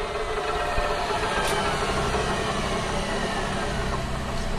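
Steady low drone of a running engine or motor, with a faint click about a second and a half in.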